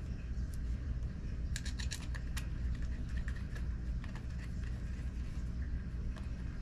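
Light clicks and taps of small metal screws and carburetor parts being handled and fitted, with a quick cluster of clicks about one and a half seconds in, over a steady low hum.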